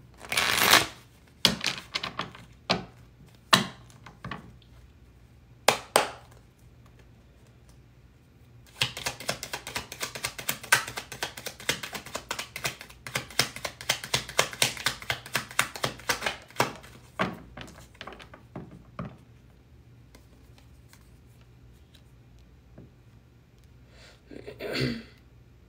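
A deck of tarot cards being handled and shuffled over a wooden table: a handful of separate sharp taps and knocks in the first six seconds, then a long run of rapid card clicks lasting about seven seconds that thins out and stops.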